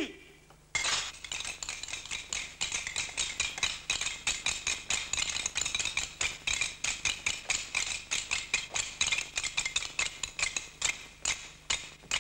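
Castanets clicking in a fast, uneven rhythm, several players together. The clicking starts abruptly just under a second in, after one sharp click at the very start.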